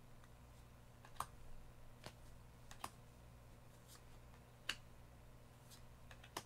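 Trading cards being flipped through by hand: about five short, soft clicks, one every second or so, as each card is slid off the front of the stack, over a faint steady low hum.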